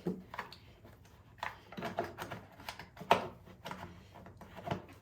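Irregular clicks and knocks of an air filter and its cover being worked out of a tight housing by hand, about eight sharp knocks spread unevenly, the engine off.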